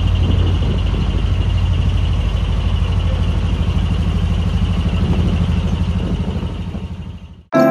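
Heavy truck's diesel engine running with a rapid, pulsing exhaust rumble that fades away near the end.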